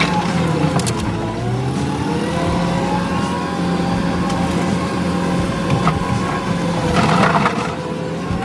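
Kubota SVL65 compact track loader's diesel engine running steadily; its pitch dips briefly and recovers about a second in. A short burst of rattling noise comes near the end.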